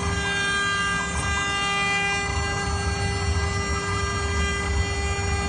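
CNC router spindle running steadily as the bit carves a relief into the board: a steady whine made of several tones over a continuous low rumble.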